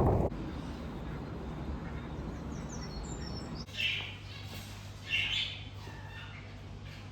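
Birds calling: a few faint, short, high chirps, then two louder calls about a second and a half apart.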